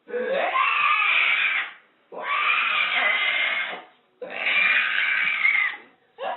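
An animal calling three times in a row, each a long, hoarse call of under two seconds with a short pause between.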